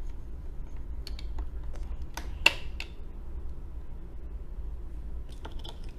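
Hard plastic playset pieces being handled and pressed into place, making a few small clicks with one sharp snap about two and a half seconds in and a few more clicks near the end.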